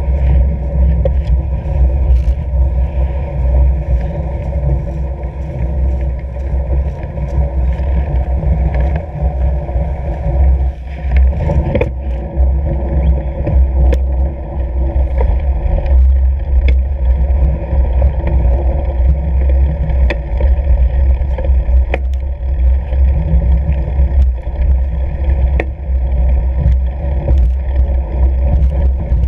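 Fat bike riding over packed snow: a steady low rumble of the ride, with scattered sharp clicks and knocks from bumps in the trail.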